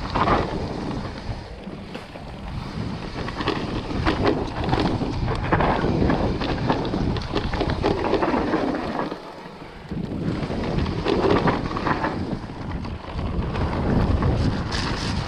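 Wind buffeting the action-camera microphone during a mountain-bike descent on an Orbea Wild FS electric mountain bike, with many short rattles and knocks from the tyres and bike over rough ground. The noise drops for about a second roughly two-thirds of the way through.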